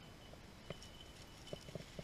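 Faint footsteps through dry brush: a few light, irregular snaps and crunches, clustered in the second half.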